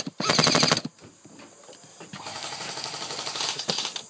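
Automatic airsoft gun firing a burst of rapid clicks that stops under a second in. From about two seconds in comes a fainter, steady rattle.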